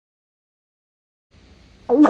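Dead silence, then a faint hiss, and near the end a loud, steady, low pitched tone starts abruptly.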